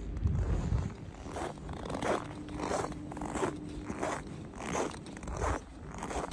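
Footsteps crunching in packed snow, a steady walking pace of about one and a half steps a second.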